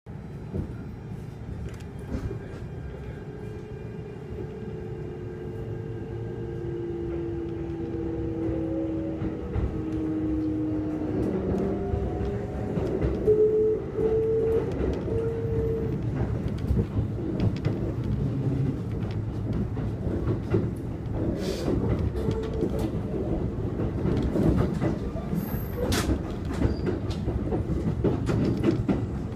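Kintetsu 1233 series electric train pulling away, heard from inside the passenger car: the VVVF inverter and traction motors whine in a series of rising tones as it accelerates through the first half. After that comes steady running rumble with frequent clicks of wheels over rail joints as it picks up speed.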